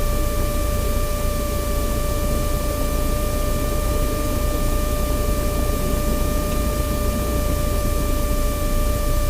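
Steady engine and airflow noise in a small airplane's cabin, with a thin steady whine held on one pitch over it.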